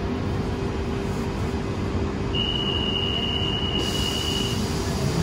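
London Underground train running, heard inside the carriage: a steady rumble with a constant hum underneath. A single steady high tone sounds for about two seconds in the middle.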